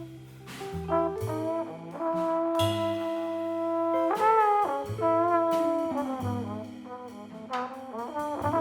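Jazz quartet playing: trombone carrying the melody in long held notes, over bass, guitar and drums with occasional cymbal strokes.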